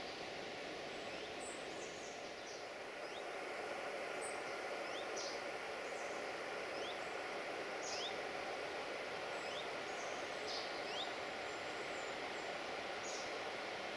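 Outdoor ambience: a steady rushing background noise with a bird repeating short rising chirps about once a second.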